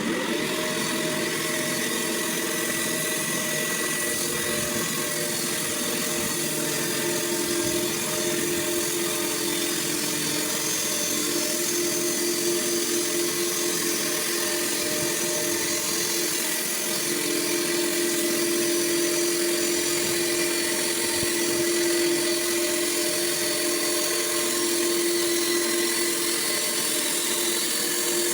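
Sawmill running steadily with a constant whine.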